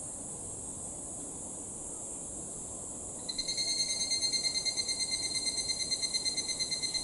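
Higurashi (evening cicada, Tanna japonensis) begins its call about three seconds in: a rapidly pulsing, high ringing trill, the kana-kana-kana song, over a steady high hiss.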